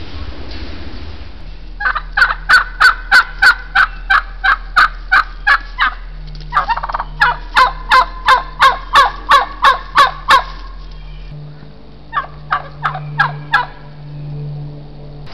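Wild turkey calling close by: three runs of short, sharp, loud notes at about three a second, the first two long and the last brief.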